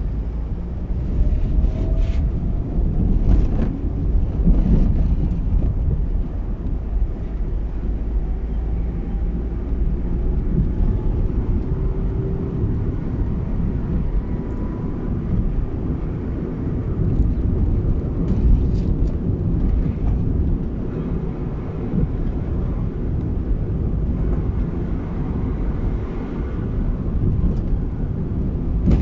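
A car driving along a road: a steady low rumble of engine and tyres, with the engine note rising gently now and then.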